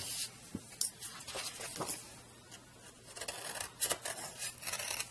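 Scissors cutting through folded paper in a string of short, irregular snips, with the paper rustling between cuts.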